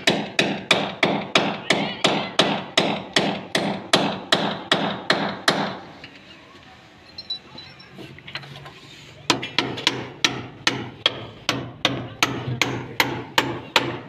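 Hammer blows on a steel chisel against concrete, about three blows a second, each with a short metallic ring. The hammering stops for a few seconds a little before the middle and then resumes at a slightly slower pace.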